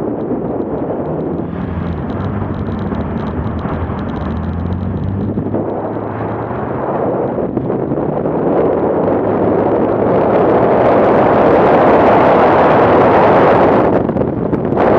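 BMW car's engine running as it drives on snow, its steady note plain in the first few seconds. A loud rushing noise then builds and covers it through the second half. The noise drops out for a moment near the end and returns.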